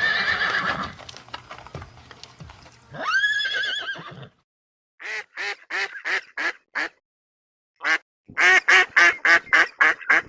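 A horse neighs, with a quavering whinny about three seconds in. Then ducks quack in quick runs of short quacks: a run of about seven, a brief pause, and a second run of about nine.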